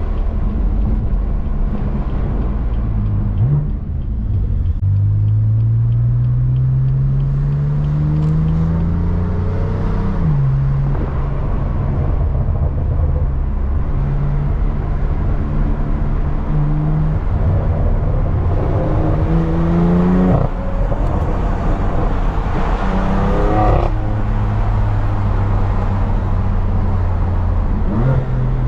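2018 BMW M3 CS's twin-turbo 3.0-litre inline-six through an AWE SwitchPath exhaust, accelerating through the gears. There is one long rising pull ending in an upshift about ten seconds in, steady cruising, then two shorter rising pulls with upshifts past the middle, before it settles back to a steady cruise.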